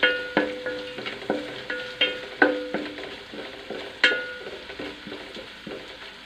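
Shallots, green chillies and curry leaves sizzling in coconut oil as a spatula stirs them. It knocks and scrapes against the pan about every half second, and each knock leaves a short ringing note; the hardest knocks come about two and a half and four seconds in.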